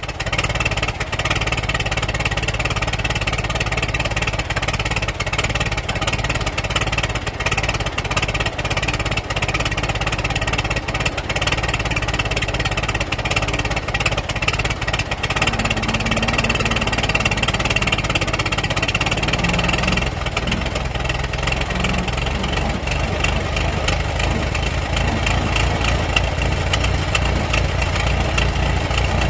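Old car engine running steadily at idle. About two-thirds of the way through, its low end turns into a more pronounced rapid pulsing.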